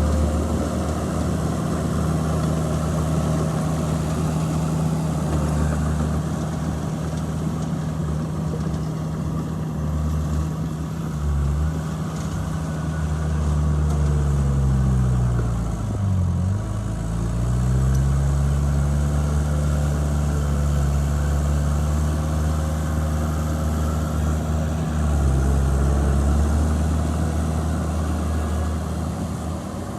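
The diesel engine of heavy earthmoving machinery runs steadily. About halfway through, its pitch drops and climbs back up, and there are smaller dips later.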